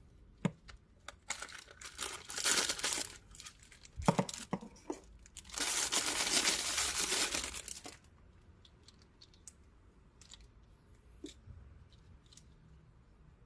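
Packaging being torn and crinkled in two long spells, with sharp clicks and knocks in between, then a few light clicks.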